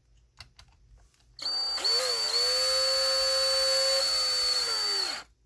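Power screwdriver running for about four seconds, driving a screw to fasten the plastic cover of a car door lock actuator: a steady motor whine that sags briefly in pitch as the screw takes load, then winds down.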